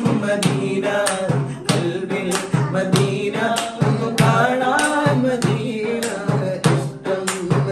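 Men's voices singing a madh, an Islamic devotional song in praise of Medina, in a long ornamented melodic line over sharp, frequent hand-drum strikes.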